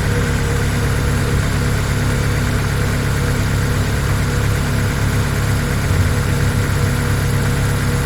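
An engine idling steadily, an even, unchanging low hum.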